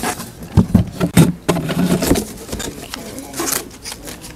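A cardboard box being opened and handled, with paper slips rustling as they are pulled out: a run of irregular knocks, taps and rustles.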